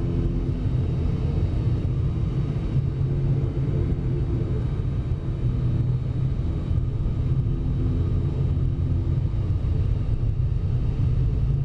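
Airliner engines running with a steady low rumble heard from inside the passenger cabin, with faint steady hums above it.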